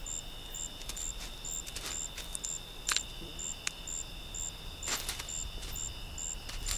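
Night insect chorus: a high chirp repeating evenly about twice a second over a steady high trill, with a few sharp clicks scattered through it.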